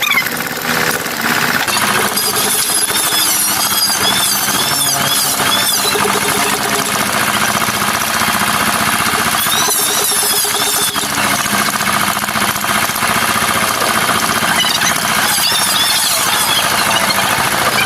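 A power carving tool cutting into MDF, running continuously with a fast rattle and a high squeal that wavers up and down as it bites.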